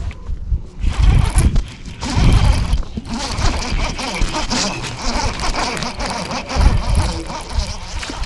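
Fishing reel being cranked to retrieve a crankbait with a fish on, a dense whirring rattle. Gusts of wind buffet the microphone.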